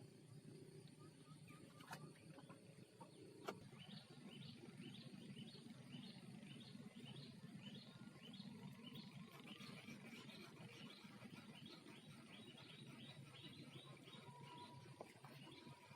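A bird calling faintly in a long, even series of short, high chirps, about three a second, starting a few seconds in and fading near the end. A couple of sharp clicks come just before the calls begin.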